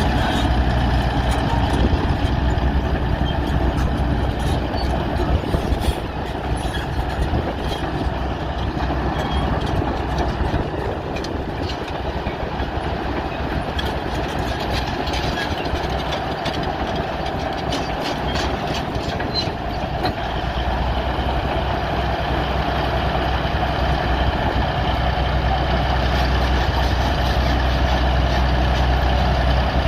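Bulldozer's heavy diesel engine running steadily, with a rapid run of metallic clicking and clanking through the middle stretch, while the low engine note eases off before building up again about two-thirds of the way through.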